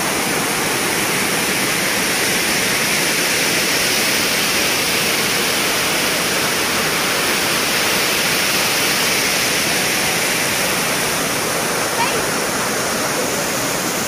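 Waterfall splashing over rocks into a pool: a steady, unbroken rush of water.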